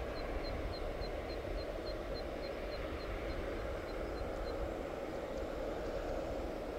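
Steady drone of airport apron noise around a parked airliner and its ground equipment. A faint high chirping, about four chirps a second, runs through the first part and fades out a little past halfway.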